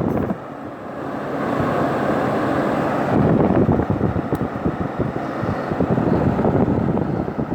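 Old Whirlpool window air conditioner running, its fan blowing air with a rushing, fluttering noise that buffets the microphone. The sound dips briefly near the start and is louder again from about three seconds in.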